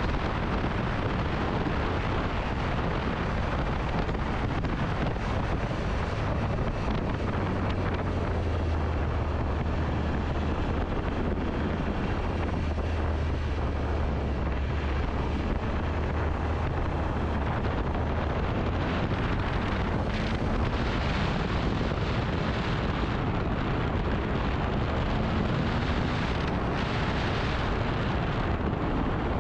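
Motorcycle riding at speed: wind buffeting the microphone over the steady drone of the engine, with the engine note slowly rising in the last third.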